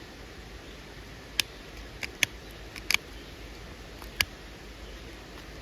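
Antler pressure flaker popping small flakes off the edge of a quartzite flake: several sharp, irregularly spaced clicks, some in quick pairs, over about three seconds.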